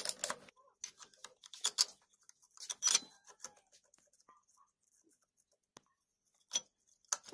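Metal clinks and clacks as a Rajdoot motorcycle's clutch plate pack is handled and seated into the clutch basket. Scattered sharp taps come in clusters during the first three seconds, then a quiet spell, then a few more near the end.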